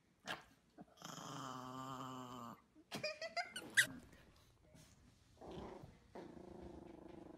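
Small dogs growling: a chihuahua gives one long, low, wavering growl about a second in. A few short, sharp high sounds follow, and then a steadier, higher growl starts about five and a half seconds in.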